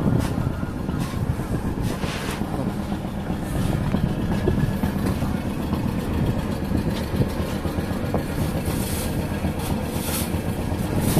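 Fishing boat's engine running steadily, a constant low rumble, with a few faint knocks on top.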